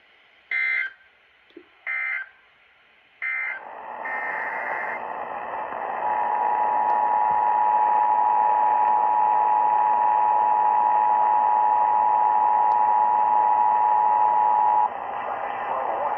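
NOAA Weather Radio alert signalling: three short digital data bursts of the SAME alert header about a second and a half apart, then radio hiss and the weather radio warning alarm, one steady tone held for about nine seconds that cuts off suddenly.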